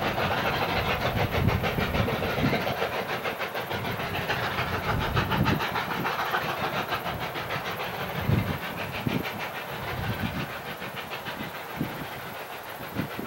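Distant chuffing from two narrow-gauge 2-8-2 steam locomotives, a K-27 and a K-36, doubleheading and working hard up a steep grade: a fast, even beat of exhaust that slowly fades. Low gusts of wind rumble on the microphone.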